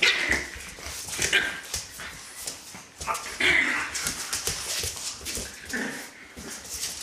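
French bulldogs at play, giving short whimpering yips and grunts, four in all, with scrabbling and scuffling on a hard floor between them.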